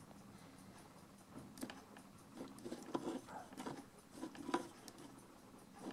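Rear wheel of a 120 W electric mini-bike scooter turned slowly by hand. The toothed drive belt gives faint, irregular clicks and a soft rubbing as it rides over the teeth of the wheel's belt rim, starting about a second and a half in. The belt is not seating properly on the teeth.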